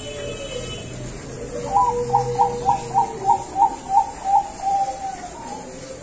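Zebra dove of the perkutut bangkok line cooing: a run of about nine short, quick notes, some three a second, ending in one longer held note. A fainter, lower drawn-out note sounds beneath it.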